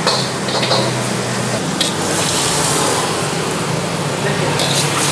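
Kailan stir-fry sizzling in a wok over a lit gas burner, a steady hiss with a low hum beneath it. A few sharp clinks of the metal ladle against the wok come about two seconds in and near the end.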